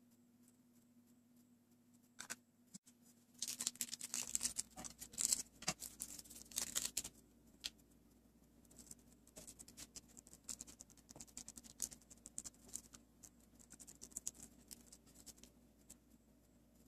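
Crinkling and rustling of a thin packet handled by hand. It is loud and dense from about three to seven seconds in, then lighter, scattered crackles follow.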